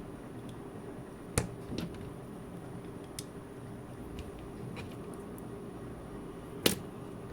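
Sharp clicks and taps of small tools on a smartwatch's case as it is taken apart: two loud clicks about a second and a half in and near the end, a few fainter ones between, over a steady low hum.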